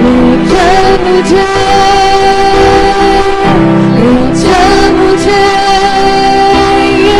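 Hindi Christian worship song: a singer holds long notes over sustained keyboard-style chords.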